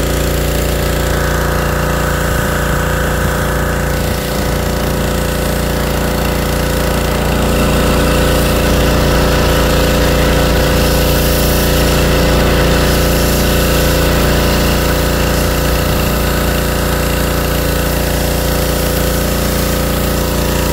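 Pressure washer running steadily, its motor and pump droning under the hiss of the high-pressure spray hitting a car's paint and metal, a little louder in the middle.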